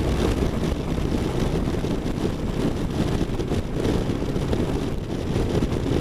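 Steady low rumble of a V-twin cruiser motorcycle's engine mixed with wind rush at highway speed, picked up by a camera mounted on the bike.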